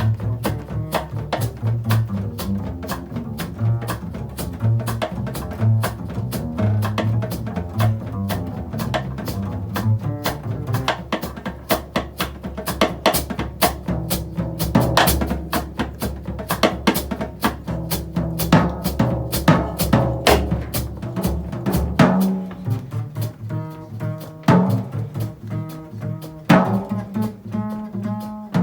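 Live jazz with a drum kit playing busy cymbal and drum strokes over plucked upright bass. About three-quarters of the way through, the deep rumble drops away and the bass comes forward.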